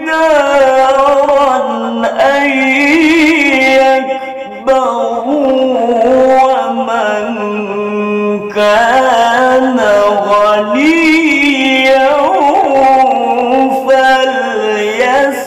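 Melodic Quran recitation (tilawah) by a male reciter. He draws out long, ornamented notes that waver and bend in pitch, with short breaks about four and a half and eight and a half seconds in.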